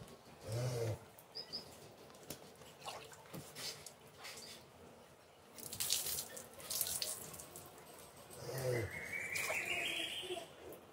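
Water poured from a mug splashing over a wet calf's back and onto a concrete floor, in uneven splashes. Near the end a container fills with water, its pitch rising as it fills.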